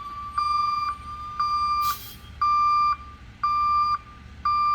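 Reversing backup alarm on heavy equipment, sounding a steady beep about once a second, each beep about half a second long. A short hiss comes through about two seconds in.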